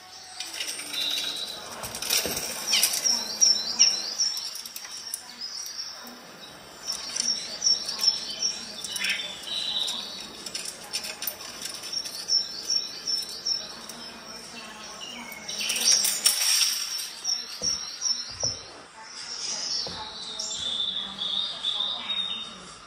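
Birdsong from a cat-entertainment video played through an Amazon Echo Show's speaker: runs of quick, repeated high chirps, several a second.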